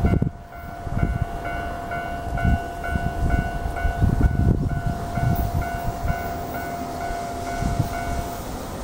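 JR Hokkaido 731 series electric train coming slowly into a station to stop, a low rumble. Over it an electronic warning signal beeps about two and a half times a second over a steady tone, and both tones stop near the end.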